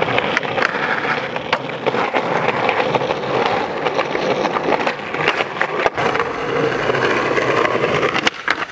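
Skateboard wheels rolling on rough pavement, with sharp clacks of the board hitting the ground scattered through.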